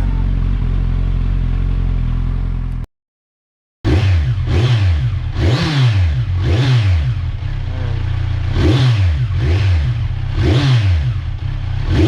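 Kawasaki Z1000 R's inline-four engine idling through an Orion slip-on exhaust. After a brief cut to silence about three seconds in, it is blipped repeatedly, the revs rising and dropping back again and again.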